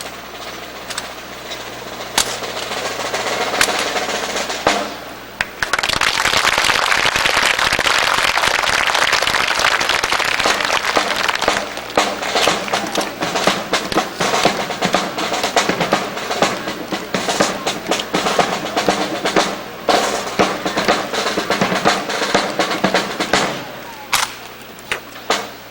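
Snare drums play a long roll, then a run of sharp strokes, accompanying a precision rifle drill.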